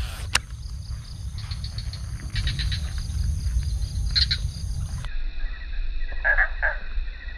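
Pond-side animal chorus of quick, high chirping trains over a low outdoor rumble. About five seconds in, the sound cuts abruptly to a thinner recording, which carries two short calls.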